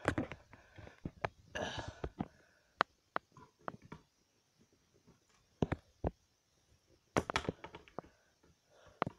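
Light clicks and knocks of handling as someone tries to press a smoke alarm's test button, scattered irregularly, with a short rustle about two seconds in. The alarm does not sound.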